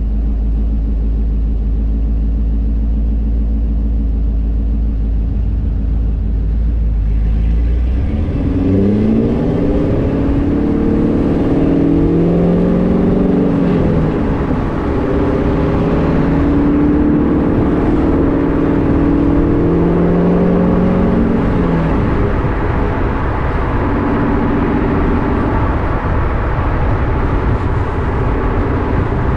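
C5 Corvette Z06 V8 with Corsa exhaust and long-tube headers, idling steadily, then pulling away about eight seconds in. It accelerates with the exhaust note climbing in pitch and dropping back at each gear change, then settles into a steady cruise.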